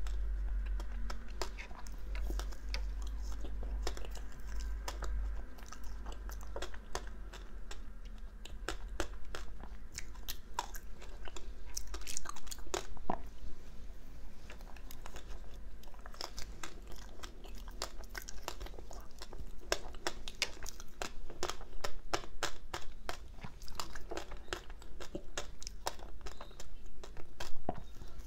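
Close-miked biting and chewing of ice chunks coated in matcha green tea powder: a dense run of fine crunches and crackles, with a few louder bites.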